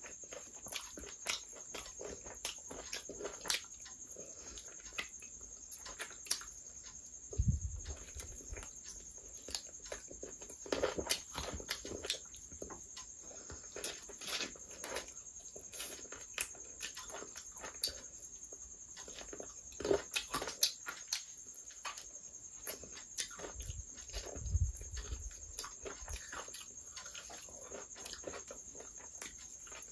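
Close-miked eating sounds: wet chewing and lip smacking as chicken curry is eaten by hand, a string of sharp mouth clicks with a couple of low thuds. A faint steady high-pitched whine sits under it.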